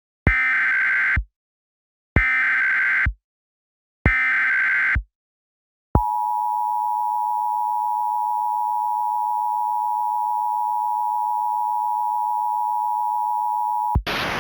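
Emergency Alert System tones: three one-second bursts of the SAME digital header, a warbling data screech, followed by the steady two-tone attention signal (853 Hz and 960 Hz sounded together) held for about eight seconds.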